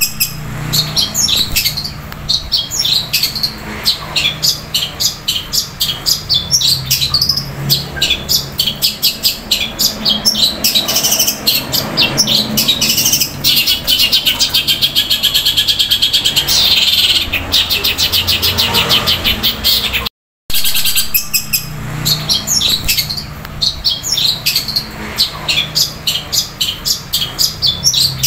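Caged long-tailed shrike (cendet) singing a loud, long, fast chattering song of rapid repeated chirps, imitating fighting Eurasian tree sparrows, with a fast rolling trill around the middle. It breaks off for a split second about twenty seconds in, then carries on.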